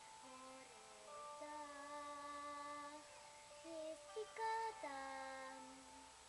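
A solo female voice singing a slow ballad, holding long sustained notes and sliding between pitches.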